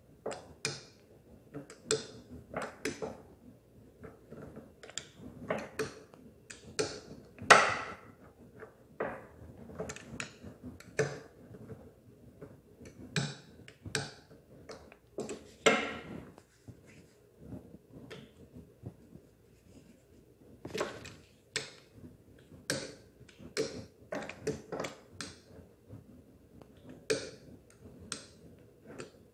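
Hand-held wooden dough roller in a metal frame pushed back and forth over dough on a hard countertop, the roller and frame giving irregular clicks and knocks, a few a second.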